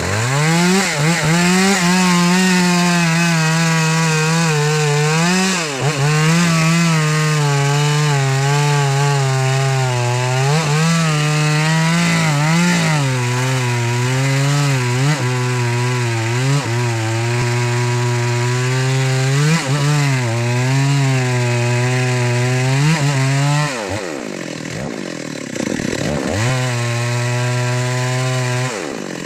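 Two-stroke chainsaw running at high revs while cutting into wood, its pitch sagging and recovering every few seconds as the chain bites. Near the end the engine drops sharply toward idle, revs up once more and drops again.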